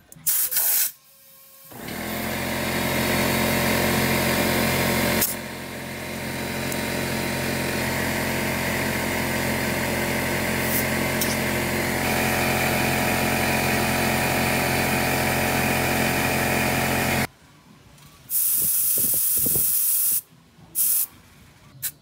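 Air compressor running steadily while compressed air hisses through the air chuck into a scooter tire after a valve stem replacement. It cuts off suddenly, and then come a hiss of about two seconds and two short hisses of air at the tire valve as the stick pressure gauge is pressed on.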